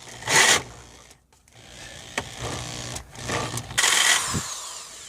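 Hard plastic trim being scraped away at the edge of a freshly drilled hole to enlarge it, in irregular rasping spells with short pauses.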